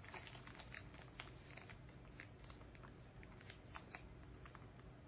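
Faint, irregular crunching clicks of a Fudge Brownie M&M being chewed, its candy shell cracking.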